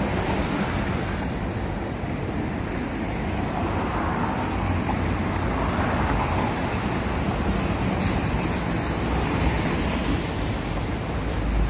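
Steady road traffic on a busy city street: engines and tyres of passing buses, cars and trucks, swelling as a vehicle passes close about halfway through.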